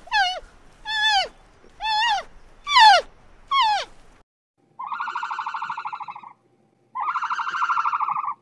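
Animal calls: five short calls, each falling in pitch, about one a second, then two longer quavering calls.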